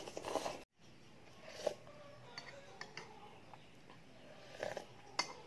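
Eating sounds from a bowl of noodle soup: a short burst of noodles being slurped, then quieter sips of broth from a spoon, with a few light clicks of the metal spoon against the bowl.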